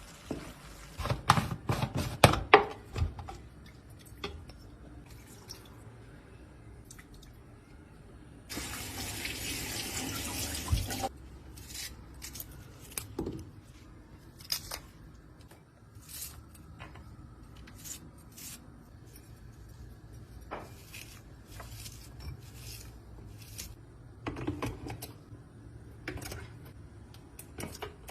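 Kitchen clatter, with clicks and knocks of utensils and cookware, and water running for about two and a half seconds in the middle.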